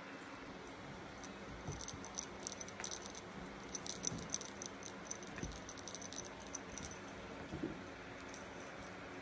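Light, rapid jingling and rattling from a small toy as a ragdoll kitten bats at it, mostly between about two and five and a half seconds in, with a few soft knocks from the kitten moving in its carpeted bed.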